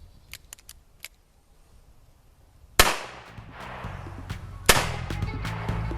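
A few faint clicks, then about three seconds in a single loud shot from a Taurus Model 66 .357 Magnum revolver, with its report dying away over about half a second. Background music comes in just after it, with another sharp shot near the end.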